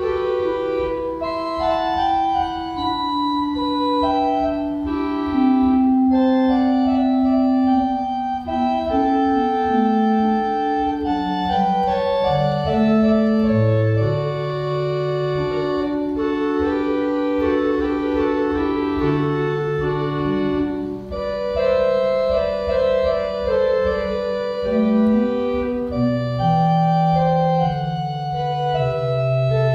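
Church organ playing a slow piece in long held chords, the notes overlapping without a break, with a bass line moving underneath.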